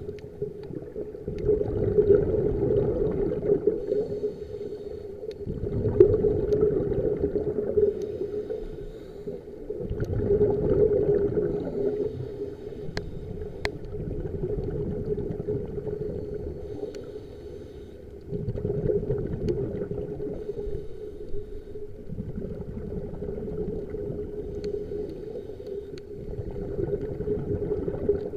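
Underwater recording: a scuba diver's exhaled bubbles gurgle and rumble in swells every few seconds, over a steady low hum.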